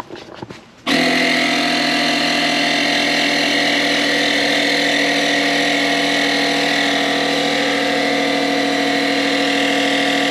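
Slime Pro-Series Garage Inflation Station's air compressor motor running loud and steady, switching on about a second in and cutting off abruptly at the end.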